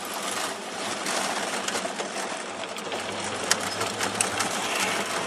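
Car engine and road noise heard from inside the cabin while driving, a steady rattly running with a low hum and a few sharp clicks a little after the middle.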